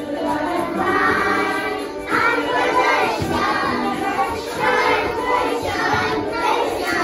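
A Christmas song with a group of young children singing along over a music backing track.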